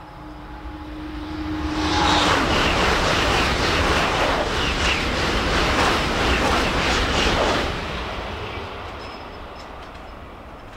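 Shinkansen bullet train passing at high speed: the rushing sound builds over about two seconds, stays loud for about six seconds with a quick run of beats as the cars go by, then fades away.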